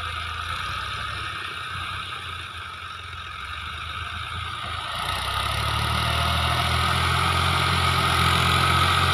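Fiat tractor's diesel engine running under load as it pulls a rotavator through the soil, a pull that is hard work for the tractor. It grows louder from about halfway as the tractor comes nearer.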